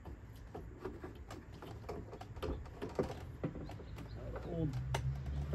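Scattered light clicks and taps of metal and plastic parts being worked inside a truck door shell as a stuck leftover piece of the old window regulator is freed, mixed with short pitched calls. A steady low hum comes in near the end.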